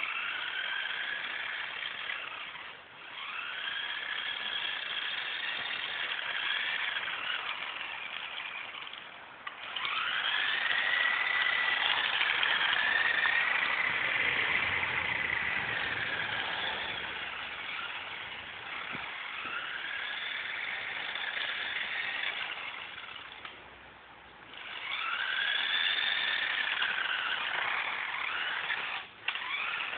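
Toy radio-controlled monster truck's small electric motor whining as it drives, in about five runs of a few seconds each. The pitch rises as it speeds up and falls away as it slows, with short pauses between runs.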